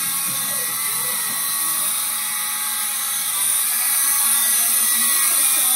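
Mini coaxial radio-controlled helicopter hovering: its small electric motors give a steady high-pitched whine over the whir of its rotor blades.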